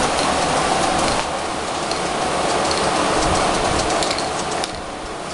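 Aerosol spray can hissing steadily as primer is sprayed in a heavier coat. The hiss eases briefly near the end between passes.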